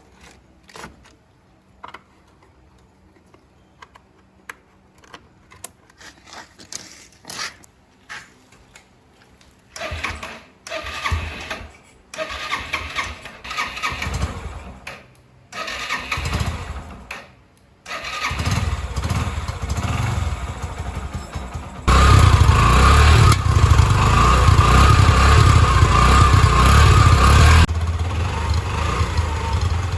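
Yamaha 125cc motorcycle engine being started: light clicks at first, then several short attempts that die out, until it catches and keeps running about 18 s in. It is revved hard for several seconds, drops back to a lower speed, and is shut off near the end.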